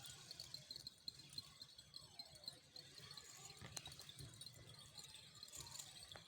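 Faint, steady insect chirping, a fast even pulse at a high pitch, with a single faint click a little after the middle.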